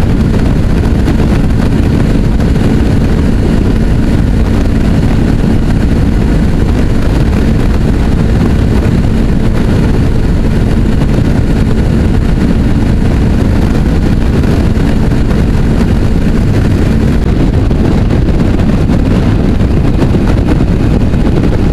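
Suzuki V-Strom's V-twin engine pulling steadily at motorway cruising speed, under heavy wind and road noise. The steady engine hum holds until a few seconds before the end, then fades.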